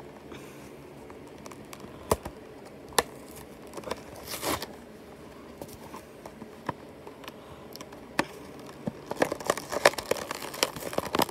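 Hands tearing and working at a toy car's cardboard-and-plastic blister pack: scattered sharp clicks and crinkles, a longer rustle about four seconds in, then quick crackling and tearing near the end.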